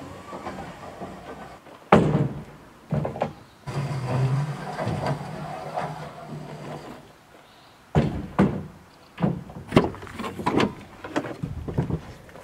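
2x8 wooden boards being slid out of a pickup truck bed and set down on a stack of boards: wooden knocks and clatters, the loudest about two seconds in, with a rough scraping slide between them and a run of quicker knocks in the last few seconds.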